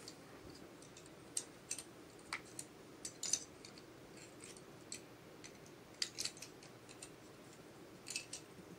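Faint, irregular clicks of small plastic building-block pieces being handled and fitted together by hand, a few clicks at a time with pauses between.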